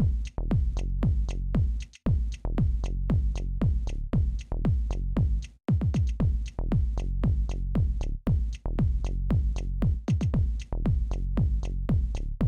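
Electronic dance music with a fast, steady kick-drum beat and hi-hats, briefly cutting out twice.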